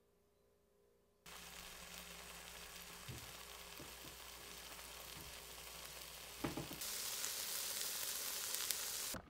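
Four slices of meat sizzling in a frying pan on a gas hob. The sizzle starts suddenly about a second in, grows louder near the end, and has a few soft knocks around the middle.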